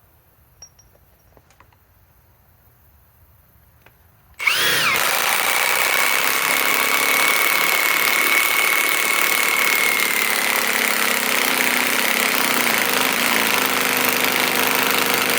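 Milwaukee M18 Fuel high-torque impact wrench starting suddenly about four and a half seconds in and running at full speed without a break, driving a fastener into wood. A steady high whine rides over the noise.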